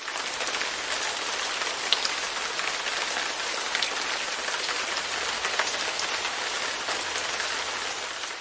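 Light rain pattering steadily on a window pane: an even hiss of rain with a few separate drop ticks standing out. It begins to fade near the end.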